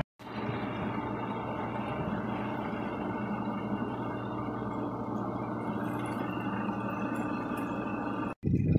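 Suzuki 150 outboard motor running steadily with the boat under way, a constant engine hum with rushing water beneath it. It cuts off suddenly near the end.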